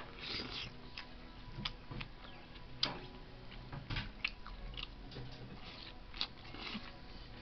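Tableware clicking and clinking at a meal table: light, irregular knocks of dishes and utensils, several a second at times.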